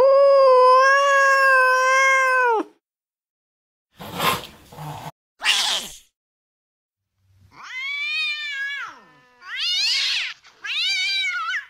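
A run of recorded angry-cat sound clips: a long drawn-out yowl that rises at its start and then holds one pitch, two short harsh hisses, then three wailing meows that fall in pitch at their ends.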